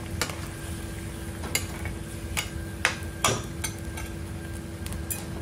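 A spoon stirring curry in a frying pan, clicking and scraping against the pan at irregular moments over a steady low sizzle as the sauce cooks down.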